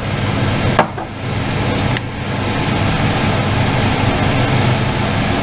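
Steady mechanical hum with hiss from a running appliance motor, with one sharp knock a little under a second in.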